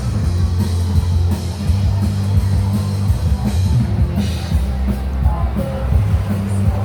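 Background music with a heavy bass line and drums, with faint singing.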